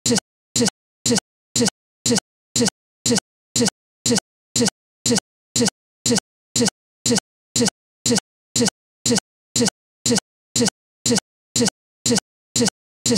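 A short fragment of audio stuck in a loop, repeating about twice a second with dead silence between repeats: a recording or playback glitch, heard while the picture is frozen.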